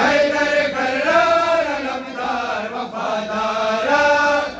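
Men chanting a noha (Shia lament for Imam Hussain) together, a lead reciter on a microphone with the group joining in, in long drawn-out notes. The chant breaks off shortly before the end.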